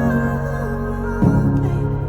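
Background music: soft, slow instrumental with sustained notes, changing chord about once a second.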